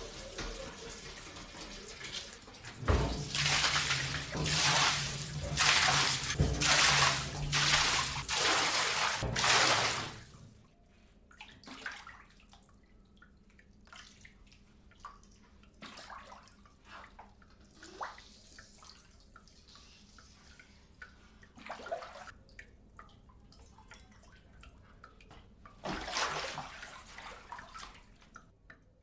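Kitchen tap running hard into a sink and a container being filled, with a low hum under it; the flow stops about ten seconds in. After that, only scattered small knocks and a short rushing noise near the end.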